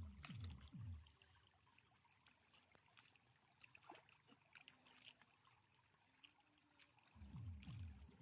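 Faint trickling water with small ticks and light splashes in shallow water. A deep repeated beat of falling pitch, about four a second, sounds in the first second and again from about seven seconds in.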